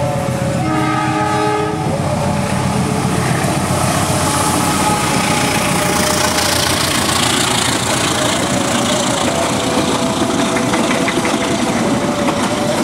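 A passenger train passing at speed: the diesel locomotive's horn sounds a multi-tone chord in the first two seconds, then the coaches rush past with a steady rumble, rail clatter and a rising hiss of wheels on the rails.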